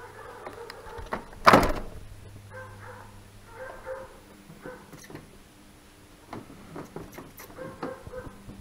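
Plastic headlight housing of a Ford Focus Mk2 being pulled free of the front end: one sharp crack about a second and a half in, then lighter plastic clicks and knocks as the unit is worked out. Faint high whining tones come and go in between.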